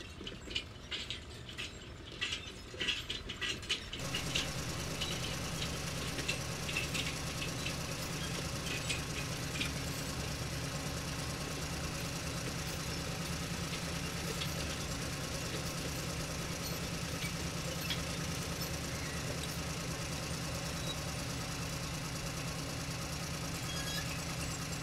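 Light plastic clicks and rattles of Duplo pieces being handled, then, from about four seconds in, a steady low hum with only an occasional faint click.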